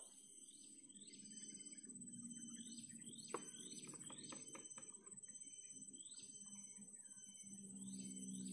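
Birds calling with short chirps repeated in quick groups, over a steady high-pitched whine and a low hum.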